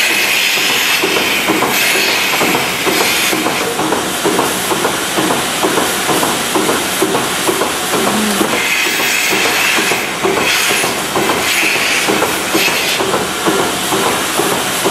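Vacuum milking machine running, its pulsation beating in a steady rhythm, with several bursts of hissing air as the teat cups are put on a cow's teats.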